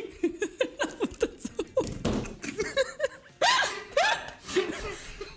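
Several people laughing hard together, in quick repeated bursts, with a few louder high-pitched whoops about three and a half seconds in.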